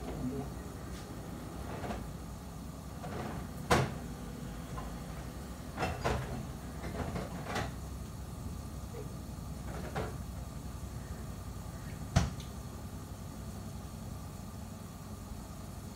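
A small refrigerator being opened and rummaged through: scattered knocks and clatters of things being moved inside and on the door, with a sharp knock about twelve seconds in as the door is shut. A steady low hum runs underneath.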